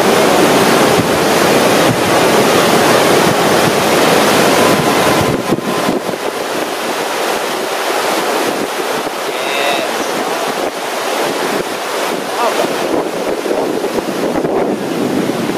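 Whitewater of a large river rapid rushing steadily through a standing wave hole, with wind buffeting the microphone. About five seconds in, the low rumble drops away and the water sounds thinner.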